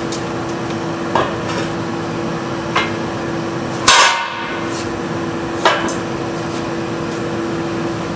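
Heavy cast swage block being set down and shifted in its welded steel stand: four metal clanks, the loudest, about four seconds in, ringing briefly. A steady hum runs underneath.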